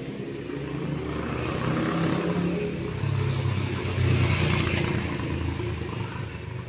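A motor vehicle's engine running as it passes close by, growing louder to a peak about four seconds in and then fading.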